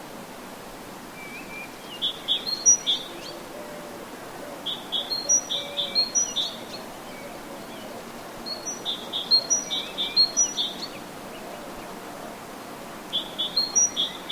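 A songbird singing the same song four times: each phrase a quick run of short, high, chirping notes lasting a second or two, with pauses of a few seconds between.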